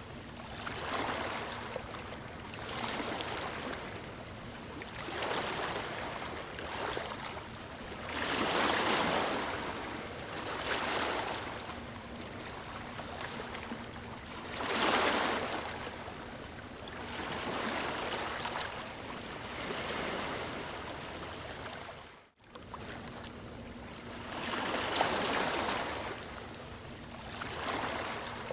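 Ocean waves breaking and washing up a beach, swelling and ebbing every couple of seconds, with the largest breakers about a third and halfway through. The sound cuts out for an instant about two-thirds of the way through.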